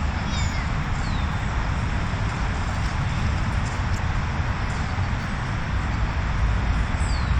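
Steady low rumbling outdoor background noise, with a few short, faint, high falling chirps near the start and again near the end.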